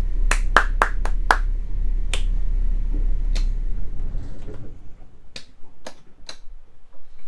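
Low, steady hum of the trawler yacht's engine that cuts off a little under four seconds in as it is shut down at the helm, with a series of sharp clicks from the controls before and after.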